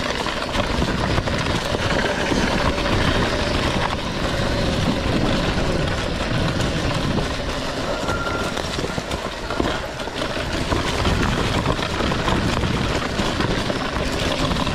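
RFN electric dirt bike ridden over a rough, rocky trail: a steady rumble of tyres over rocks and the bike rattling, with no engine note.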